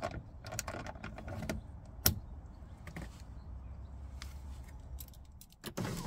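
Clicks, knocks and rattles of car door parts being handled during window regulator motor work, with one sharp click about two seconds in. A low steady hum for a few seconds follows, and a short burst of knocks comes near the end.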